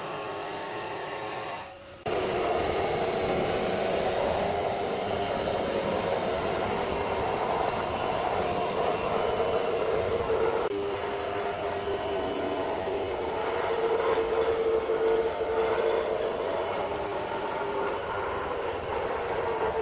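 Water-fed electric stone-grinding machine working a black granite slab: a steady motor hum with a grinding, splashing wash of water. About two seconds in, a different, higher-pitched machine sound cuts off abruptly and the grinding begins.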